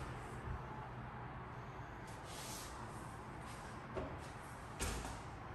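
Quiet room tone with faint movement knocks from the person carrying the camera: a soft knock about four seconds in and a slightly louder thump just before five seconds.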